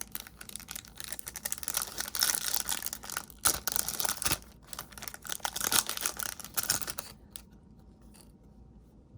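Plastic foil wrapper of a Topps baseball card pack being torn open and crinkled, a dense crackle of small clicks that stops about seven seconds in.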